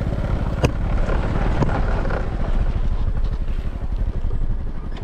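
Small motorbike engine running steadily under way, with wind on the microphone. A couple of sharp clicks come about half a second and a second and a half in.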